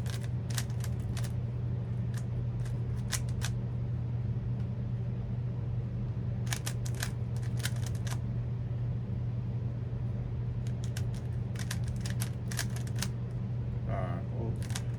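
Rubik's cube being turned, in quick runs of sharp plastic clicks as the layers are twisted, with short pauses between runs. A steady low hum runs underneath throughout.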